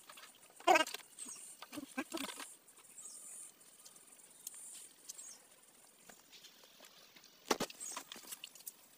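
Hands and a stick digging among wet mud and stones in a stream bed: scattered knocks and wet scrapes, the loudest a sharp knock near the end. About a second in, a short pitched voice-like cry sounds, and faint high chirps come and go.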